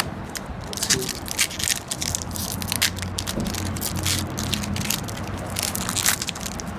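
Foil trading-card booster pack wrapper crinkling and tearing as it is ripped open by hand, a dense run of crisp crackles.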